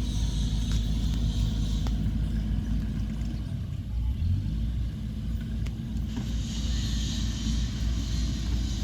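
Diesel engine of heavy earthmoving machinery running with a steady low rumble. From about six seconds in, a higher rushing noise joins it.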